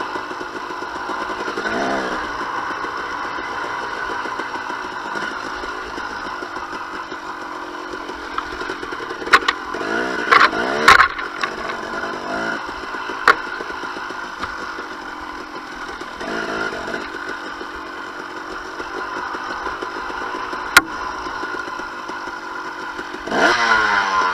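2007 KTM 250 XC-W's single-cylinder two-stroke engine running on a trail ride, revving up several times, most strongly near the end. Sharp knocks and clatter come through a few times in the middle.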